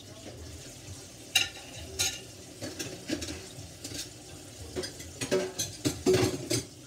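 Kitchen faucet running into a stainless steel sink, with a run of sharp clicks and crackly knocks over it that come thicker and louder near the end.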